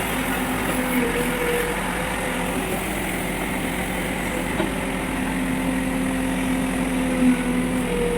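Diesel engine of heavy machinery running steadily, with a steady hum over the engine noise and a few faint knocks.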